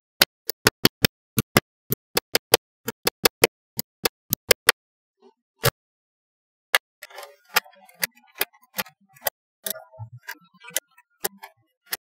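Small neodymium magnetic balls snapping together one after another. A quick, uneven run of sharp clicks, about five a second, stops about four and a half seconds in. After a pause, scattered clicks return with light rustling as the balls are handled.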